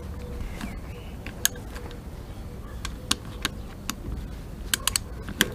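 Scattered sharp metal clicks of a ratchet wrench and socket working the bolts of a motorcycle engine's oil strainer cover, with a quick run of three clicks near the end.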